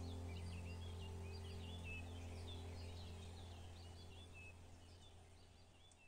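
Birds chirping and twittering in quick, varied notes over a steady low hum, the whole sound fading out toward the end.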